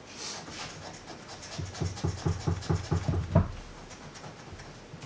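A coin scratching the coating off a scratch-off lottery ticket: light scraping at first, then a run of quick back-and-forth strokes, about five a second, ending in one harder stroke about three and a half seconds in.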